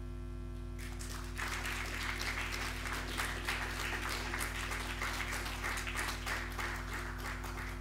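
Audience applauding, the clapping starting about a second in and holding steady, over a constant electrical mains hum.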